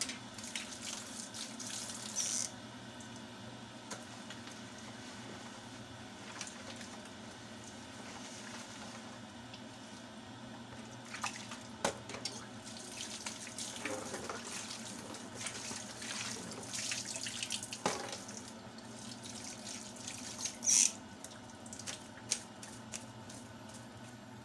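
Tap water running and splashing in a kitchen sink, with scattered sharp clinks and knocks.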